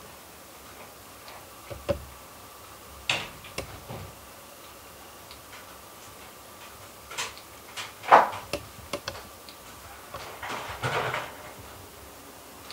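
Scattered sharp clicks and knocks over a low steady background, the loudest about eight seconds in and a quick cluster near eleven seconds.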